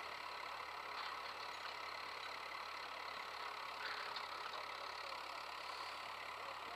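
Tractor engine running steadily while towing a boat trailer across sand.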